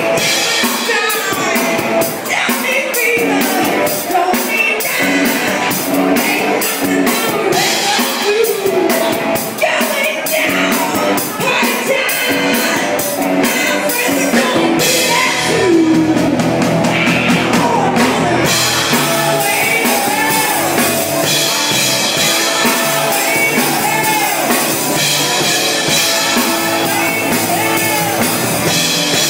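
Live rock band playing: drums, guitar and vocals. The cymbals and drums drop out for a few seconds about halfway through, then come back in.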